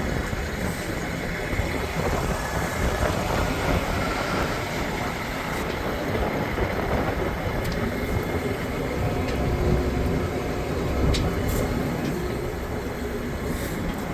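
Mack 11.9-litre inline-six diesel engine of a concrete truck running steadily, a continuous rumble with a few faint clicks.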